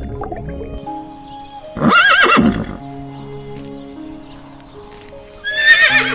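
A horse whinnying twice, about two seconds in and again near the end, each a loud, quavering call lasting under a second, over background music with long sustained notes.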